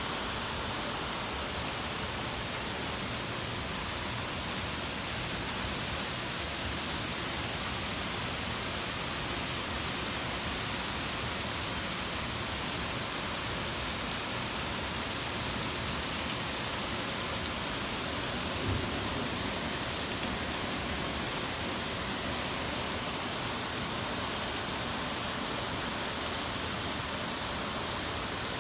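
Torrential rain pouring steadily and evenly.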